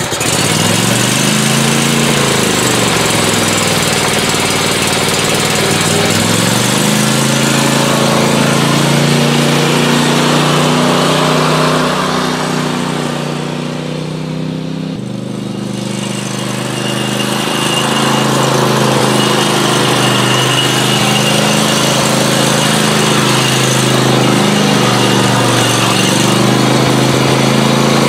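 Great Dane Super Surfer stand-on mower's engine running while the mower is driven on its first test after a new hydraulic wheel motor was fitted. The engine speed rises and dips in the first few seconds, then holds steady. It grows fainter about halfway through as the mower moves away and louder again as it comes back.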